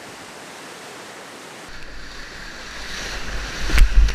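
Whitewater rapids in spring flood, rushing steadily. A little under two seconds in, the sound turns to a kayak-borne action camera's microphone, and water buffets and rumbles against it, with sharp splashes hitting it near the end.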